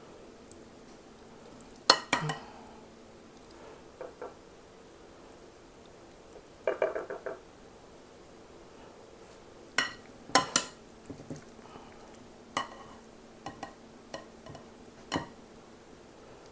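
Metal serving spoon clinking and scraping against a glass mixing bowl and plates as salad is scooped and served. Sharp clinks come at irregular intervals, the loudest about two seconds in and a short ringing one about seven seconds in, over a faint steady hum.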